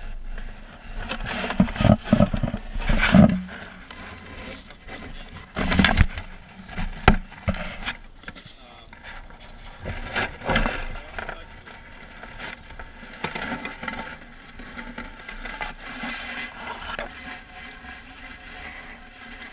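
Close handling noise from a fish in a landing net being worked on a boat: net mesh rustling and scraping, with several sharp knocks, the loudest in the first seven seconds.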